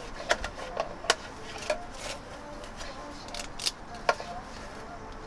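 Street food stall background: a low steady hum of surroundings with scattered sharp clicks and clinks of kitchen utensils and containers.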